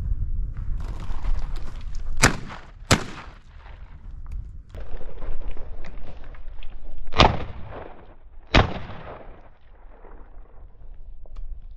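Four shotgun shots fired at flushing quail: two in quick succession about two seconds in, then two more a second and a half apart about seven seconds in, each trailing a short echo.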